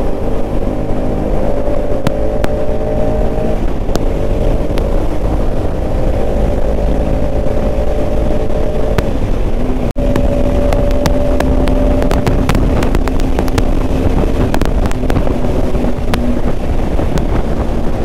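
Bajaj Pulsar RS200 single-cylinder engine running at a steady cruise inside a road tunnel, with wind rush on the rider's microphone. About halfway through, the sound drops out for an instant.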